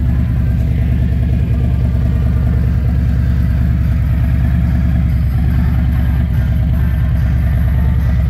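Harley-Davidson touring bike's Milwaukee-Eight V-twin engine idling steadily.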